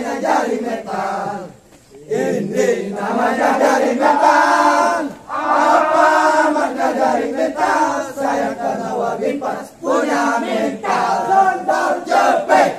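A group of men chanting a Scout yell (yel-yel) together in unison, half sung and half shouted, with a short break about two seconds in.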